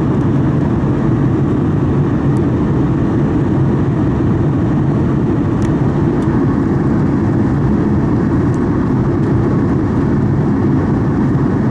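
Steady cabin noise inside a Boeing 737 MAX 8 airliner during descent: an unbroken rumble of airflow and engines, heaviest in the low range, with a few faint ticks.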